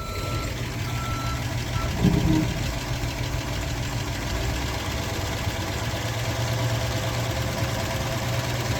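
1958 Oldsmobile 88's V8 running steadily in gear, straining against stuck brakes as the car tries to move. There is a brief louder surge about two seconds in. An intermittent electronic beeping sounds during the first two seconds.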